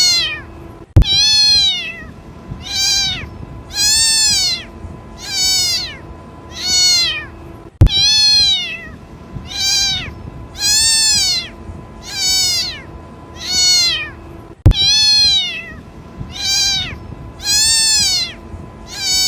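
Kitten meowing over and over, crying for its mother: high calls that rise and fall in pitch, about one every second and a half. A sharp click comes three times, about seven seconds apart.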